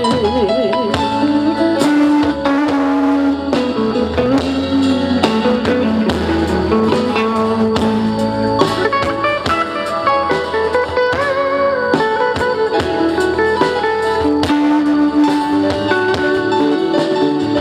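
Live band playing an instrumental break between sung lines: guitar and held melody notes over bass and a drum kit's steady beat.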